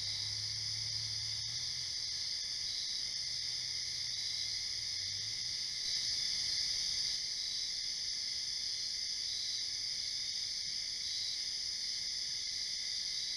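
Steady, high-pitched chorus of night insects such as crickets. A faint low hum fades out about halfway through.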